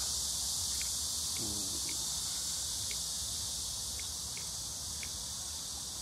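A chorus of black cicadas (Cryptotympana atrata) buzzing loudly and without a break, a continuous high-pitched hiss.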